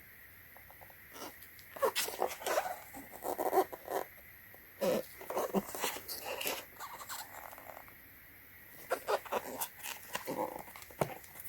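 A plastic EV charging adapter being handled: irregular clusters of clicks, scrapes and rustles, pausing briefly about two-thirds of the way through.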